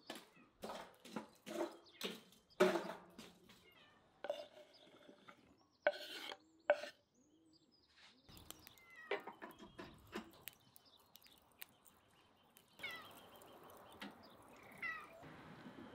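Charcoal in a metal grill being stirred with a metal poker: a run of sharp knocks and clinks that dies away after about seven seconds. Short falling high-pitched calls follow near the end.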